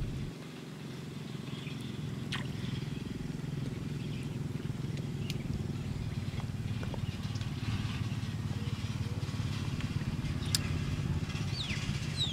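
An engine runs steadily in the background, a low hum that slowly grows a little louder, with a few faint clicks and some short high chirps near the end.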